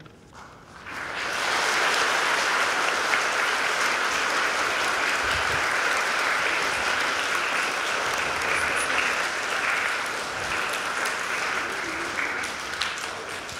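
Audience applauding, starting about a second in and slowly tapering off near the end.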